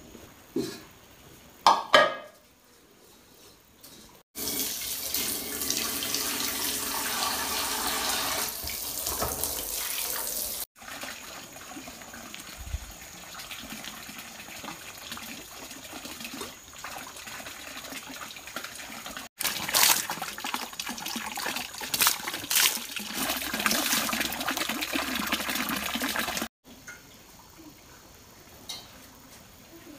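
Running water splashing, as when washing at a tap, in two long loud stretches that start and stop abruptly, with quieter water sound between; a few short knocks near the start.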